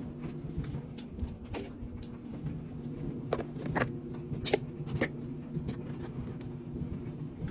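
Front-loading washing machine running, a steady motor hum with scattered sharp clicks and knocks.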